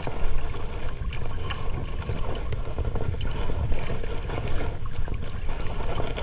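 Wind rumbling on the microphone over the wash of water around a small boat at sea, with a few faint clicks.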